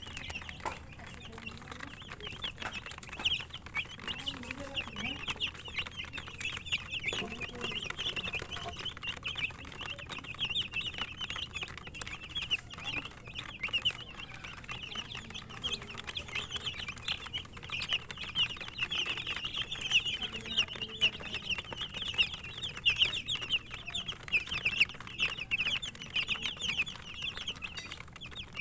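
A group of domestic chicken chicks peeping continuously: many short, high chirps overlapping one another, with scattered faint clicks among them.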